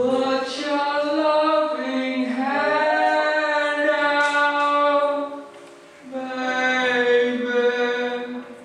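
Amplified male voice singing long held notes in two phrases, with a brief break about five and a half seconds in.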